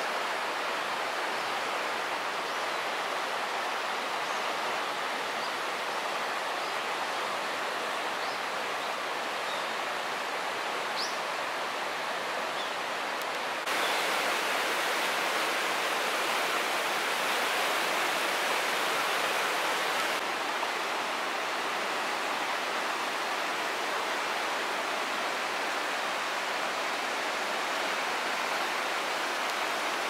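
Tama River rapids rushing steadily over rocks, a constant roar of fast water that steps up louder for several seconds about halfway through.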